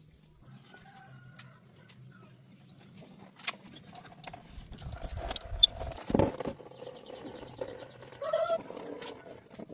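Scattered clicks and knocks over a faint low hum, with a heavier thump a little past the middle and a short, bird-like pitched call near the end.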